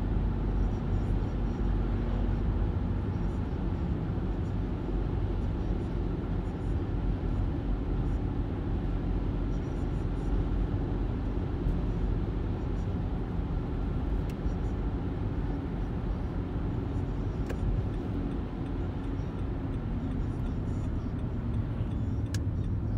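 Steady road and engine noise heard inside a car cruising along a two-lane road, with a few light clicks in the second half.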